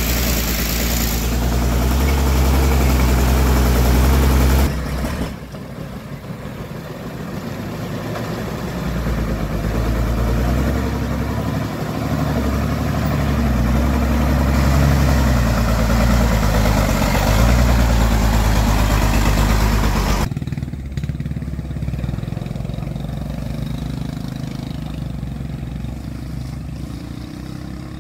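The engine of a homemade log-hauling truck running steadily, with a deep low hum. The sound changes abruptly twice, about five and twenty seconds in, and is quieter and duller after the second change.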